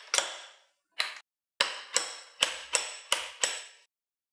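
A long masonry drill bit being pushed and locked into a rotary hammer drill's chuck: sharp metallic clicks and clacks, each ringing briefly. One click comes just in, another about a second in, then six in quick succession, about three a second.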